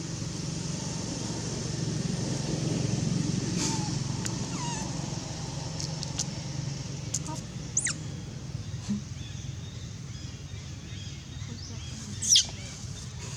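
Steady rumble of traffic, with a few short, high, falling squeaks from a crying baby monkey; the loudest squeak comes near the end.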